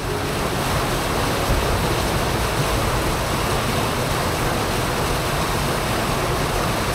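Water rushing steadily down a narrow concrete channel, a continuous churning rush.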